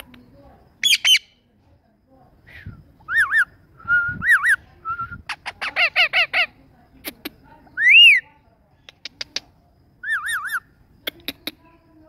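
Indian ringneck parakeet calling: a string of short arched squawks and chirps, with a quick run of repeated notes about six seconds in and its loudest single call about two seconds later. Sharp clicks come between the calls.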